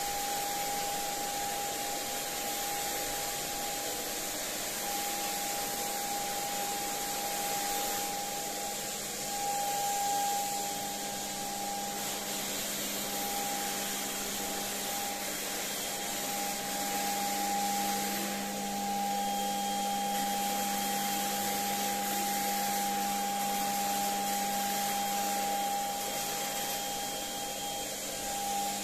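Turbine of an HVLP paint sprayer running steadily with a constant high whine, blowing air down the hose to the spray gun as polyurethane varnish is sprayed.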